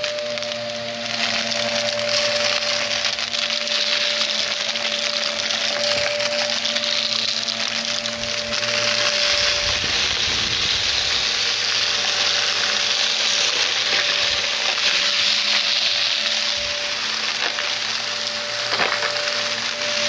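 Vacuum cleaner running steadily with a constant motor tone, crackling as it sucks up crunchy debris.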